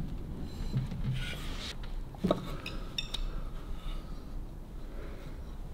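Light metal clinks and one sharper knock about two seconds in, from engine mounting plates and bolts being handled against the engine and frame.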